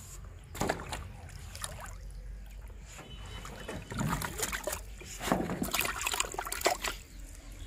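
A catfish splashing and thrashing in a plastic bucket of water, in irregular bursts that are loudest in the second half.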